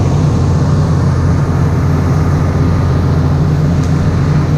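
Farm harvest machinery's diesel engine running steadily under load, a loud constant drone with no change in speed.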